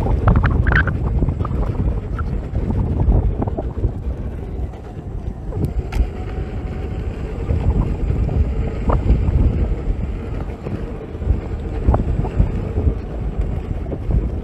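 Wind rumbling over a handheld phone's microphone as an electric unicycle is ridden fast over a bumpy dirt track, with scattered knocks from the bumps.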